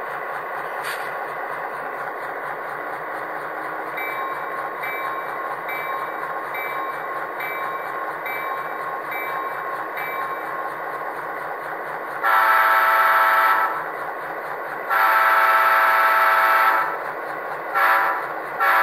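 Soundtraxx Tsunami 2 EMD diesel sound decoder playing through small cube speakers in an HO-scale model switcher. It plays a steady diesel idle, with a bell ringing evenly for about six seconds. Then the horn sounds two long blasts and two short ones near the end.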